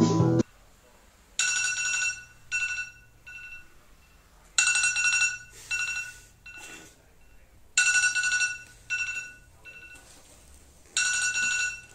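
Phone ringtone: one long electronic tone followed by two short ones, the pattern repeating about every three seconds. Guitar music cuts off just after the start.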